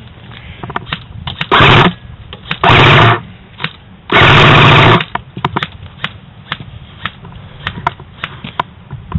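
Airsoft electric gun firing three short full-auto bursts, the last the longest at about a second, with scattered single clicks between them.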